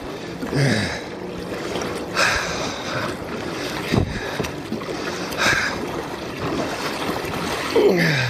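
Kayak paddle strokes: the blades dig into the water on alternating sides with a splash about every one and a half to two seconds. Near the end there is a short falling voice sound.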